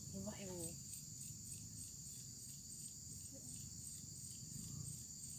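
Steady, high-pitched insect chorus with a faint regular pulse, about three a second, over a low rumble.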